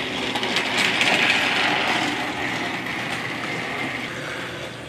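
Battery-powered TrackMaster toy train running on plastic track: a steady motor-and-gear whir with wheels rattling on the track, a little louder about a second in.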